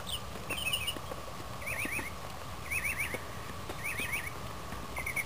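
A bird repeating a short warbling chirp, each one wavering quickly up and down, about once a second.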